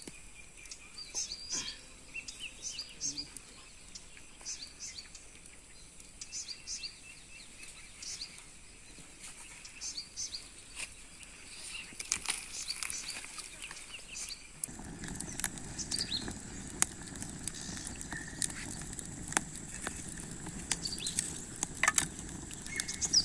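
Open wood fire crackling and popping, with a steady low rush of burning that comes in suddenly about two-thirds of the way through. Birds chirp in short calls through the first half.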